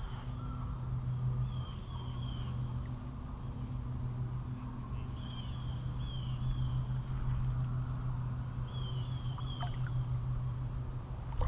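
Steady low wind rumble buffeting the microphone in a strong breeze, with a bird calling in several short runs of chirps above it.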